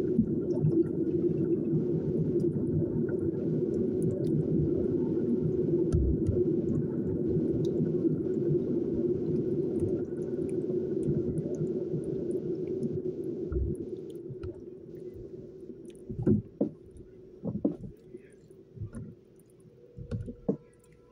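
A large pan of thick chili being stirred with a spoon: a dense, wet squelching and bubbling that eases off about two-thirds of the way through. Near the end come a few separate taps and rattles as a seasoning shaker is shaken over the pan.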